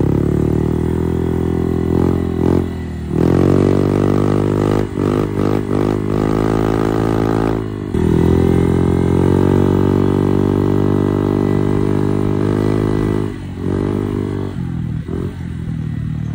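Honda Click scooter's single-cylinder four-stroke engine breathing through a K-Vin power pipe exhaust with a big tip, ridden under throttle. The exhaust note rises in pitch as it pulls away about three seconds in and again about eight seconds in, dropping briefly when the throttle is eased between pulls, and falls lower and quieter near the end.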